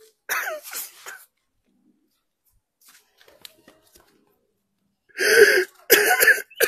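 Human voices: a few spoken words just after the start, then two loud, short vocal outbursts about half a second each near the end.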